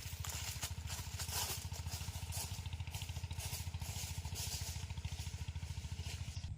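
An engine running with a steady, rapid, even beat, under a rushing hiss.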